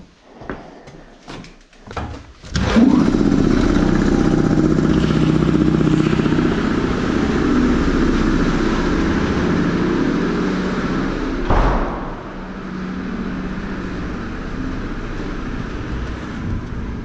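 A few scattered knocks, then a motor-driven workshop machine starts abruptly about three seconds in and runs loudly and steadily with a fast low throb. A knock comes partway through, after which it runs on a little quieter.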